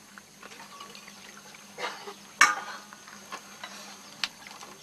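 Rice beer (chubitchi) being poured from a glass bottle into metal mugs, with a faint splash of liquid and a few sharp clinks, the loudest about halfway.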